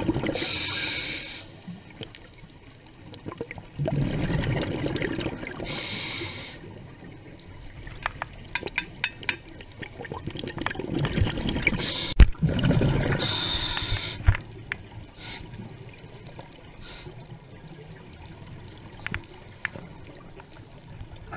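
Scuba diver breathing through a regulator underwater: three breaths, each a short hiss and a bubbling exhale, about six seconds apart. Faint scattered clicking and crackling fills the gaps between breaths.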